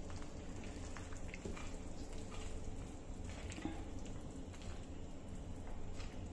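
Faint, scattered soft taps and squelches as a sticky dry-fruit and sugar-syrup mixture is scraped with a spatula out of a steel kadai and slides into a steel tray, over a low steady hum.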